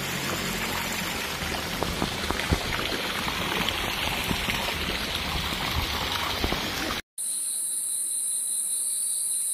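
Water running and splashing into a swimming pool: a dense, even rush with scattered small splashes. About seven seconds in it cuts off abruptly and gives way to crickets: a steady, high-pitched chirring.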